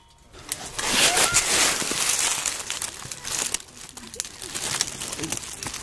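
Close rustling and crunching of dry leaves and brush, dense with small cracks, starting about a second in.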